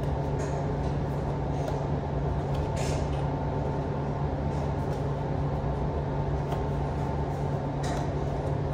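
A steady machine hum in the room, with a faint thin whine above it. A few soft clicks and rustles come from a cardboard takeaway noodle box as its flaps are folded shut.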